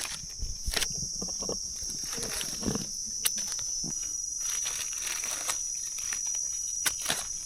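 Steady high-pitched drone of insects, with scattered crackles and rustles like dry leaf litter being stepped on or handled.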